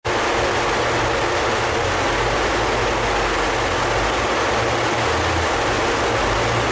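Steady, loud rushing noise of a rolling-road dyno's large cooling fan blowing on a car, with a steady low hum from the car running on the dyno rollers beneath it.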